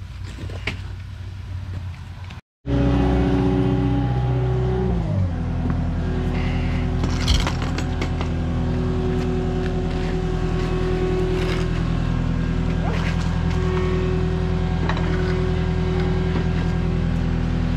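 Skid steer loader's engine running close by, loud and steady; its revs fall shortly after it is heard, then it runs evenly.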